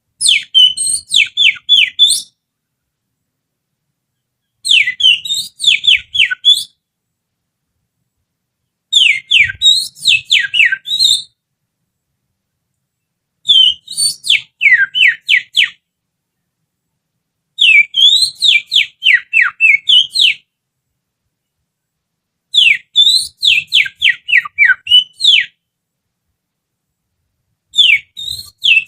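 Finger whistling through the little finger, imitating an Oriental magpie-robin's song as a lure to provoke a caged bird. Phrases of about two seconds of rapid, high, falling whistled notes repeat every four to five seconds, seven times.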